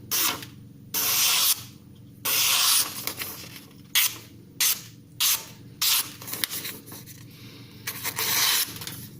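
Freshly sharpened Spyderco kitchen knife slicing through paper to test the edge: about eight cuts, a few long draws of about half a second and several short quick ones in the middle.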